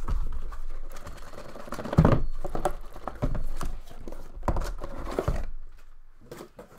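Hands handling and opening sealed cardboard boxes of hockey cards: rustling and crinkling of packaging with repeated knocks of cardboard, one louder knock about two seconds in, tapering to a few small clicks near the end.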